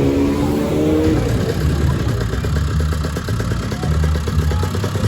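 Lambretta scooters' two-stroke engines running. One revs with rising pitch through the first second, then settles into a fast, even popping beat over the low rumble of other scooter engines.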